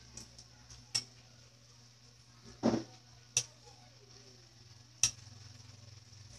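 Metal kitchen tongs clicking and knocking against a nonstick pan four times as shrimp are turned, over the faint sizzle of the shrimp frying in butter.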